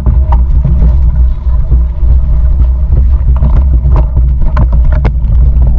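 Heavy low rumble of wind buffeting the microphone, with frequent rattles and knocks from a mountain bike rolling downhill over rough ground.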